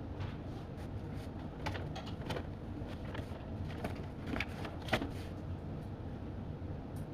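Study café room ambience: a steady low hum with a few scattered small clicks and taps, the loudest about five seconds in.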